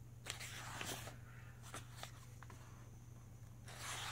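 Paper pages of a softcover book rustling as they are handled, with a few light clicks, then a louder swish near the end as a page is flipped over.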